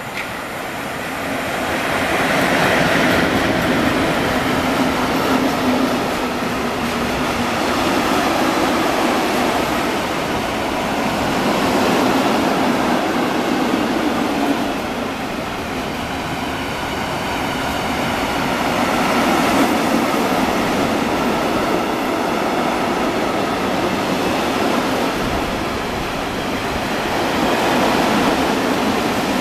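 Freight train of tank wagons hauled by an ET22 electric locomotive passing through a station at speed. The wheels rumble steadily on the rails, a little louder a few seconds in and again near the end.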